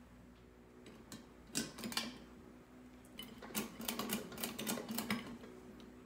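Hunter Coastal Breeze 52-inch ceiling fan running with a steady low hum. Over it come two bursts of rapid, irregular clicking and rattling, one about a second and a half in and a longer one from about three and a half to five seconds in.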